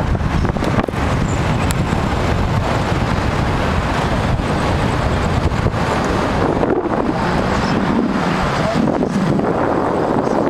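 Wind buffeting the microphone over the rumble of road and traffic noise from a moving car, with the low rumble easing somewhat about two-thirds of the way through.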